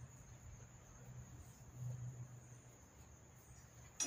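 Steady high-pitched insect chirring over a faint low rumble. Right at the end, a single sharp knock as a hand grabs the golf cart's metal top strut.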